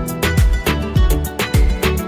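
Background music with a steady beat: deep drum hits about twice a second under sustained instrument notes.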